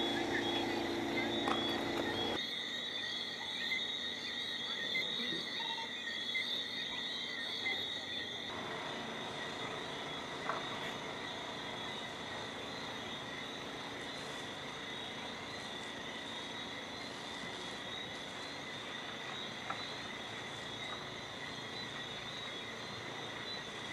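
Steady, high-pitched night chorus of insects and frogs, with a few faint knocks.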